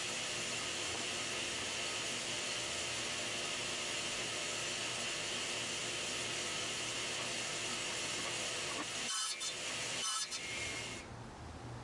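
Benchtop table saw running steadily while a crosscut sled carries the board through the blade for angled dovetail cuts. Near the end the sound breaks off abruptly twice, then changes to a quieter low hum.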